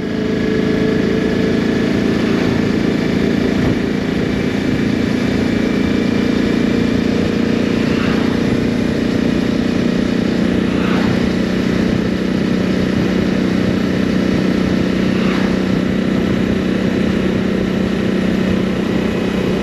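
Motorcycle engine running steadily at cruising speed, heard from the rider's seat with wind and road noise over it.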